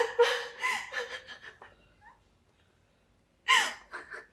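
A woman crying in distress: high, wavering sobs for the first second and a half, then a sharp gasp about three and a half seconds in and a shorter one just after.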